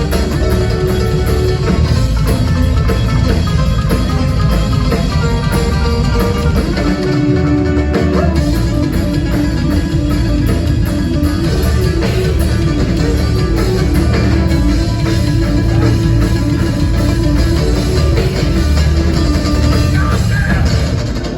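Live thrash-grass band playing an instrumental passage without vocals: plucked string lines over a heavy, driving low end, loud and steady throughout.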